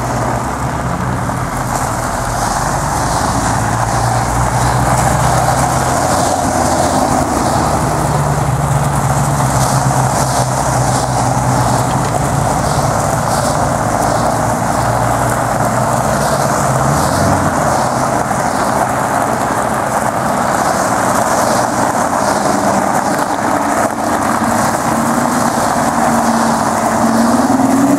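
Aston Martin sports cars pulling away one after another at low speed across a gravel forecourt, their engines running over the steady crunch of tyres on gravel. Near the end, one engine note rises as a car passes close.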